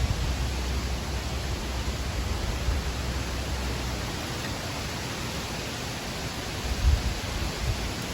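Steady rushing wind, with gusts buffeting the microphone in a low rumble through the first half.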